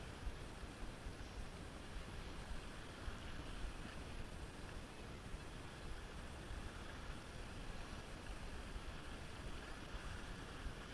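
Wind noise on the camera's microphone, a steady low rumble with small gusty peaks, over waves washing against shoreline rocks.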